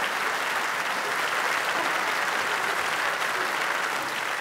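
Large theatre audience applauding steadily, a dense even clapping.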